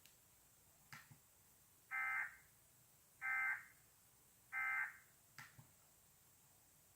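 Three short electronic data bursts about a second apart, each lasting under half a second: Emergency Alert System end-of-message tones.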